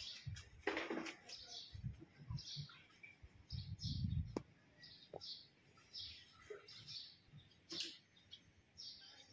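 Birds chirping: a string of short, high chirps, roughly two a second, with faint low rumbles and a couple of sharp clicks beneath.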